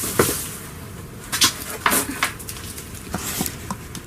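Irregular knocks and clatters of a container and garden things being handled during clean-up, a sharp knock about every half second to a second.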